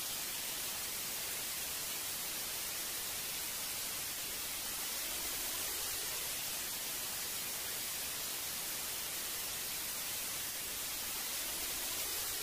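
Steady, even hiss of analog television static (white noise), strongest in the high range.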